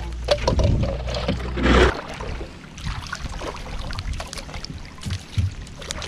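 Water and handling sounds from a small wooden outrigger boat as a gill net is paid out over the side in light rain: splashing, with scattered light ticks. A low rumble stops abruptly about two seconds in, and the rest is quieter.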